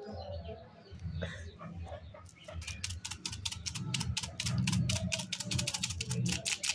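Tiny sugar-ball candies rattling and clicking inside a clear plastic tube as it is shaken out into a palm. The clicks come as a fast run of several a second, starting a couple of seconds in.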